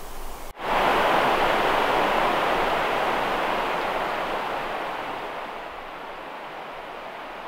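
A rushing noise starts suddenly about half a second in. It fades slowly over the next few seconds to a lower, steady hiss.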